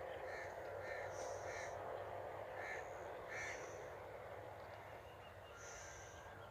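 Birds calling outdoors: a run of short, harsh calls, about seven in the first three and a half seconds, then one more near the end, over a steady background hiss.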